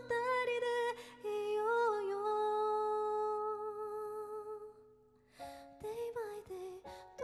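A woman singing a slow pop ballad to her own Yamaha keyboard accompaniment. She ends a line on a long held note that fades away about five seconds in, then the keyboard comes back in with chords and she starts the next line.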